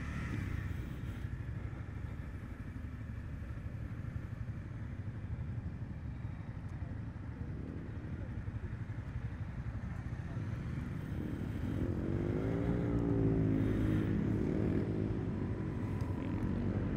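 2015 Honda CB300F's single-cylinder engine running under way, a steady low drone. About two-thirds of the way through, the engine note climbs and then eases back as the bike accelerates.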